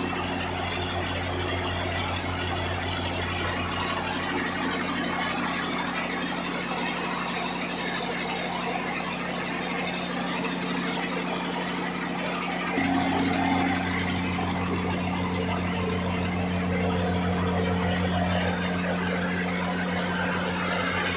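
Old Belarus tractor diesel engine running steadily, driving a flour mill (atta chakki) through a flat belt. It gets a little louder about thirteen seconds in.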